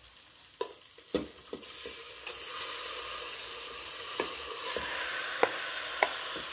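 Diced raw beef hitting hot oil in a pressure cooker with browned onion and garlic, sizzling from about two seconds in and then holding steady. A wooden spoon and a glass bowl knock sharply against the pot several times as the meat is scraped in.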